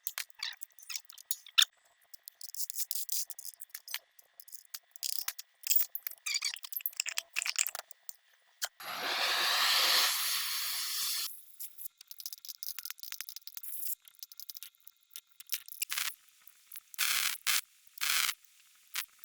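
Metal parts and tools clicking, clinking and scraping during axle overhaul work, with a steady hiss about nine seconds in lasting a little over two seconds, and two short hisses near the end.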